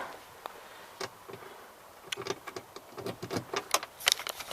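Camera handling noise: scattered light clicks and taps, more frequent toward the end.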